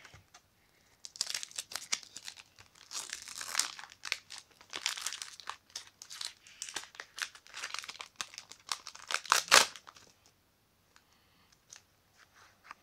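Foil wrapper of a Pokémon TCG booster pack crinkling and tearing as it is opened by hand, a dense run of crackles and rips with one sharp, louder rip about three-quarters of the way through.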